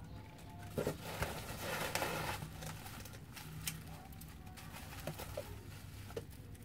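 Bubble wrap and cardboard handled: a crackly rustle with sharp clicks as a bubble-wrapped item is lifted out of a cardboard box, then a few scattered taps and clicks.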